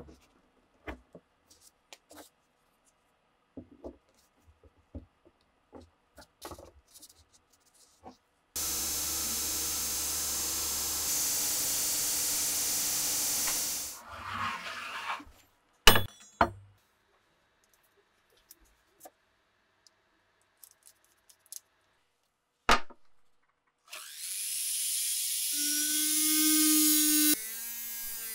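Light clicks and taps of tools and parts being handled, then a power tool runs steadily for about five seconds, followed by a few sharp knocks. Near the end, a rotary tool fitted with a sanding drum spins up with a rising whine, and its sound changes abruptly as it works a wooden handle scale.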